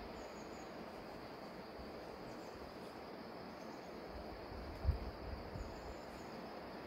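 Steady outdoor background noise, with a few faint, short, high chirps and a single low bump about five seconds in.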